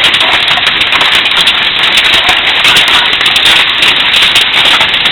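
Hail pelting down: a loud, steady, dense patter of countless small impacts.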